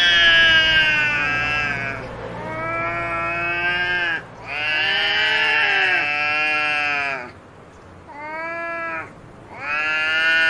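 Cats yowling at each other in a fight standoff: a run of five long, drawn-out, wavering threat howls, each one to three seconds, the fourth one shorter and quieter, about eight seconds in.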